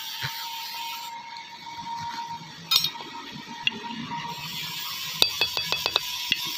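Hammer striking a steel ferrule onto a wooden handle: a few separate metallic hits, then a quick run of about eight light, ringing taps near the end.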